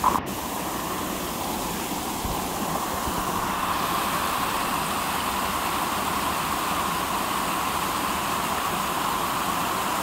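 Water pouring from a drain's exit pipe and rushing down a creek channel in a steady whitewater rush, running high after heavy rain. A brief knock of the camera being handled right at the start.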